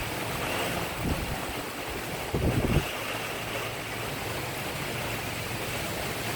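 Steady rain pattering on roof tiles and leaves, an even hiss, with a brief low rumble about two and a half seconds in.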